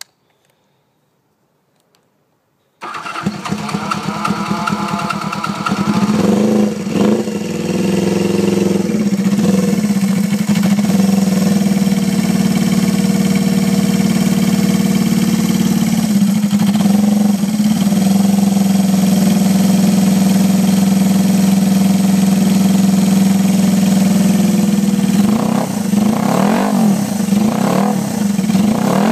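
Benelli 125cc twin motorcycle engine, breathing through a pair of Benelli GP exhaust cans, starting about three seconds in and settling into a steady idle. It is revved briefly a few times soon after it starts, once around the middle, and in a run of quick blips near the end.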